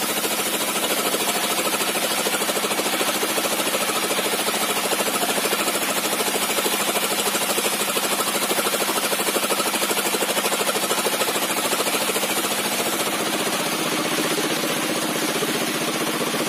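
Sawmill bench saw with a 60 cm zigzag-tooth circular blade running and ripping a plank from a log: a loud, steady, dense noise with a fast pulsing under it that eases slightly near the end.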